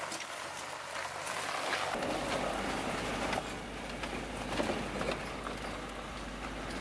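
Off-road vehicle driving along a grassy dirt forest track: steady tyre and road noise with scattered knocks and rattles. About two seconds in, a low steady engine drone joins it, as heard from inside the cab.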